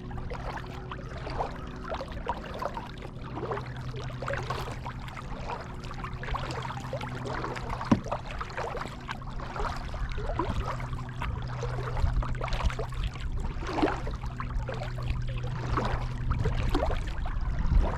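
Kayak paddle dipping into calm pond water, with splashing and dripping between strokes. A steady low hum runs underneath, and there is a single sharp knock about eight seconds in.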